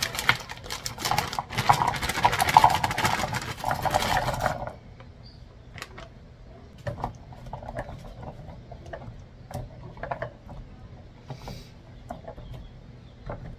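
Frozen meatballs clattering out of a plastic bag into a slow cooker's crock, a dense rattle with the bag crinkling, which stops about four and a half seconds in. After that, scattered quiet knocks of a spoon stirring the meatballs in the crock.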